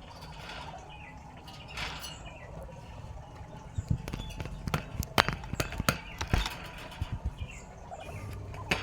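Birds chirping in short falling notes, with a run of sharp taps and knocks starting about four seconds in.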